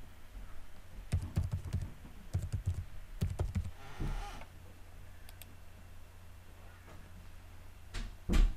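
Computer keyboard keys typed in two quick runs as a password is entered. A single louder knock comes near the end.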